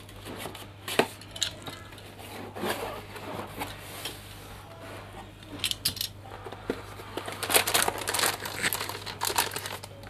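Unboxing a motherboard: the box's seal is cut and the cardboard lid opened with scattered clicks and scrapes, then the plastic anti-static bag around the board crinkles, most densely near the end. A steady low hum runs underneath.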